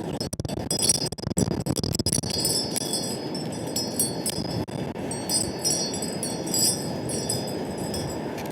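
Wind buffeting the microphone as a steady rumble, with high tinkling tones and small clicks coming and going above it.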